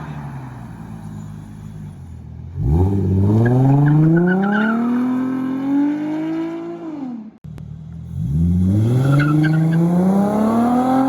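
Nissan 350Z's V6 through an Invidia N1 cat-back exhaust, running low at first, then pulling hard under acceleration with the engine note climbing for about four seconds before backing off. The pull happens twice, with a sudden cut between them.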